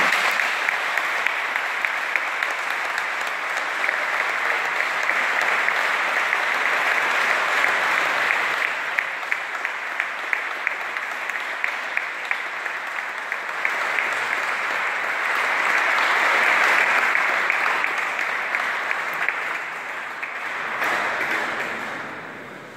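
Large audience applauding at length in a big church hall, many hands clapping together; the applause swells about two-thirds of the way through, then dies away near the end.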